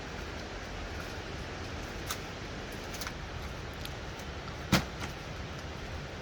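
Steady rushing background noise, with a couple of light clicks and one sharp knock about three-quarters of the way through.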